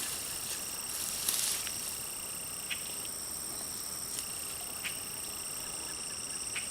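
Steady outdoor insect chorus, a high trilling held at two pitches, with a lower trill that starts and stops. A few brief knocks and a short rustle, loudest a little over a second in, from hands digging potatoes out of the soil.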